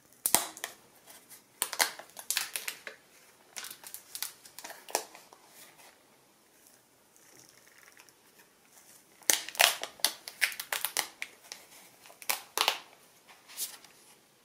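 Thin clear plastic protective film crinkling and crackling as it is peeled off and handled on a new phone's back. It comes in two spells of sharp crackles with a quieter stretch between.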